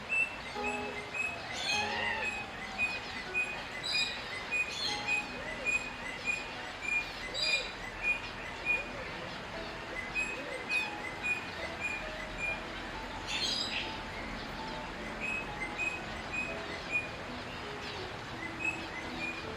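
Eastern rosella calling: a long series of short, high piping notes, about three a second, broken now and then by sharper chirps.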